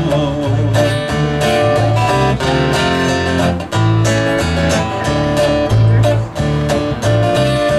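Instrumental break in a country song: an acoustic guitar strummed over a walking electric bass line, with no singing.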